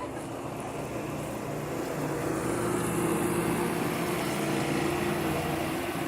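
A motor vehicle's engine running with a steady low hum, getting louder about two seconds in and easing off near the end.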